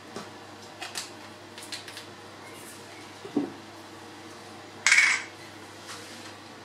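Kitchen handling noises from glass sauce bottles and a bottle cap: a few light clicks and a knock against the countertop, then a short, louder noisy burst about five seconds in, as BBQ sauce is squeezed out of a bottle.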